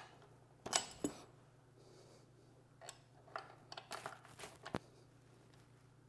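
Faint metal clicks and taps as the rear chain adjuster bolt on a motorcycle swingarm is loosened and turned by hand: a few clicks about a second in, then a quick run of small taps near the middle.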